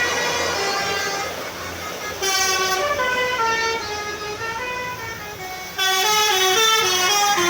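Bus 'telolet' basuri multi-tone musical horn playing a tune of quick stepped notes. A new loud phrase starts about two seconds in and another near six seconds, each fading before the next.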